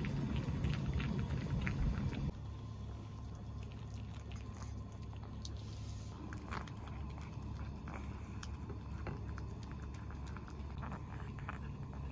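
Small dogs eating dry kibble from ceramic bowls: chewing and crunching, with many small clicks of food and tongues against the bowls. A low background hum drops in level about two seconds in.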